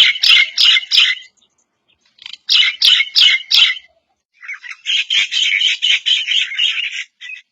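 Myna calling in three bouts: the first two of about five quick calls each, the last a longer, faster run of calls.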